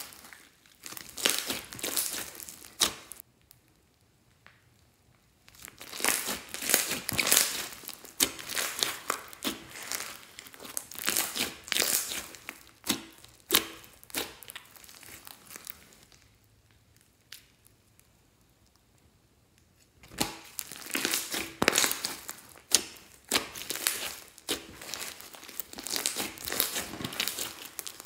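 Hands squishing, stretching and poking clear slime loaded with foam beads and glitter: a stream of sticky crackles and small pops. It pauses twice, for about two seconds a few seconds in and for about four seconds around the middle.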